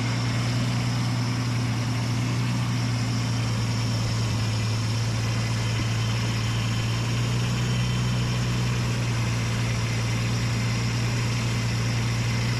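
Nissan Skyline R34 engine idling steadily with a constant low hum, while fluid circulates to purge air from the freshly fitted power steering pump and rebuilt rack.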